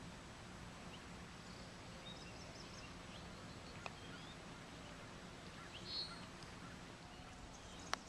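Faint outdoor background noise with scattered short bird chirps and calls. A sharp click comes near the end.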